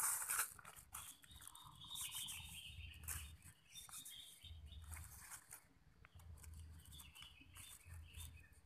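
Faint clicks and rustles of hands handling a plastic lid, a metal rod and a plastic bag on leaf litter, with birds chirping in the background.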